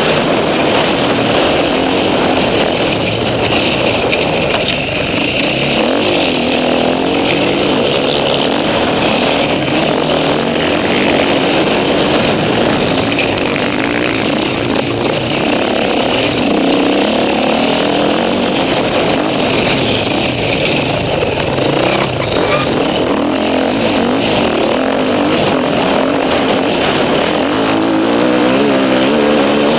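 Enduro motorcycle engine heard onboard at racing pace, its pitch rising and falling again and again as the rider accelerates, shifts and backs off through the turns.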